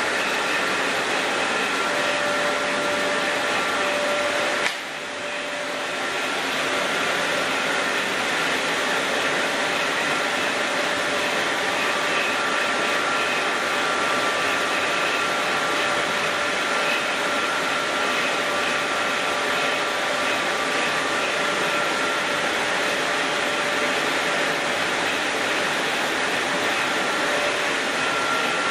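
Chili powder milling machinery running steadily: a dense, even mechanical noise with a few steady whining tones on top. The level drops briefly about five seconds in, then recovers.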